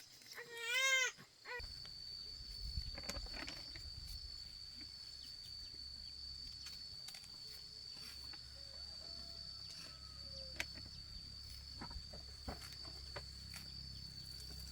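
A goat bleats once, a wavering call, about a second in. After that there is a steady high-pitched whine over a low hum, with scattered light taps.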